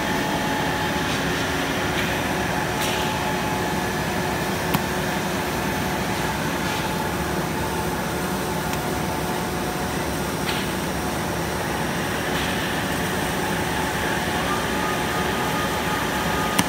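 Steady hum of production-line machinery, with a few steady tones running through it. There is a sharp click about five seconds in and another near the end.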